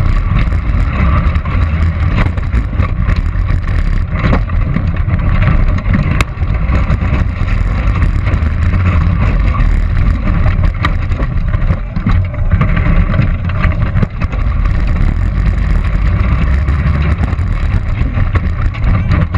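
Competition robot driving, heard from a camera mounted on it: a loud, steady low rumble of motors and drivetrain with frequent knocks and rattles.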